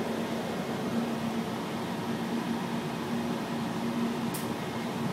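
Steady mechanical hum and hiss inside a riding aerial tramway cabin, with one constant low tone. A short, faint tick about four seconds in.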